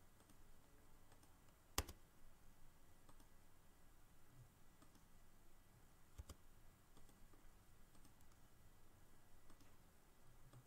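Near silence broken by computer mouse clicks: one sharp click about two seconds in and a quick double click about six seconds in, with a few fainter ticks between.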